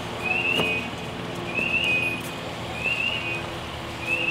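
A short high chirp, rising then falling, repeats about once every second and a bit over the steady drone of an engine, most likely the fire engine running its pump to supply the hose lines.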